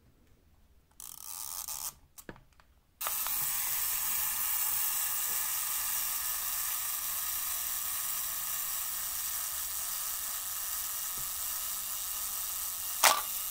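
Zenit 21XS 35 mm SLR self-timer cycle. There is a brief mechanical rasp about a second in and a small click soon after as the timer is set going. About ten seconds later, near the end, the shutter fires with one sharp click, heard over a steady hiss.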